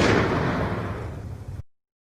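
Explosion sound effect: a loud rumbling blast fading away and cutting off to silence about one and a half seconds in.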